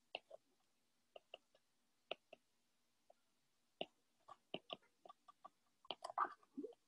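Faint, scattered clicks of a stylus tip tapping on a tablet's glass screen during handwriting, growing denser near the end.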